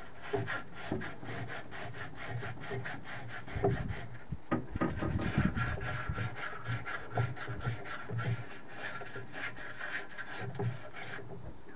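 Emery cloth rubbed back and forth in the cylinder bore of a British Seagull two-stroke outboard, a steady rasping at about four strokes a second, cleaning up the bore of the once-seized cylinder. A few heavier knocks come about four to five seconds in.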